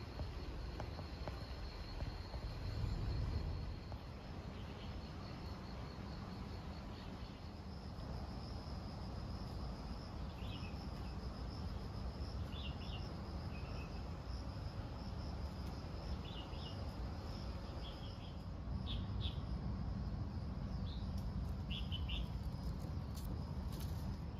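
Insects trilling steadily at a high pitch in park vegetation, with short bird chirps scattered through the second half, over a low rumble.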